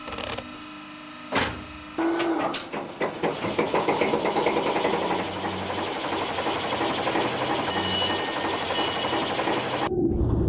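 A boat's engine is started about two seconds in, firing with a fast run of knocks, then settles into steady, rattly running. Just before the end it gives way abruptly to a deeper, louder rumble of a boat under way.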